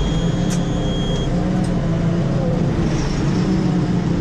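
A vehicle engine running steadily with a low, even hum. A thin high-pitched whine stops about a second in.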